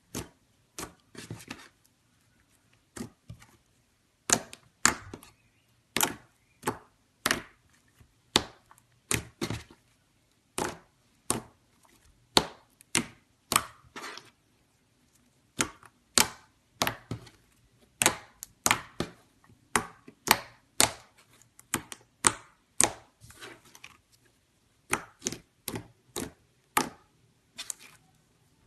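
Slime being played with by hand, giving a long irregular series of sharp crackling pops and clicks, about one or two a second, with short pauses between runs.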